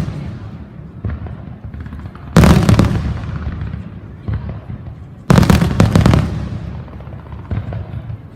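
Aerial firework shells bursting overhead: two loud booms about three seconds apart, each a cluster of sharp bangs followed by a long rolling echo that dies away.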